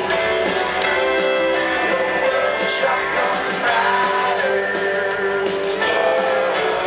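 A live country band plays through a concert PA, with electric guitar and a sung vocal line over the band.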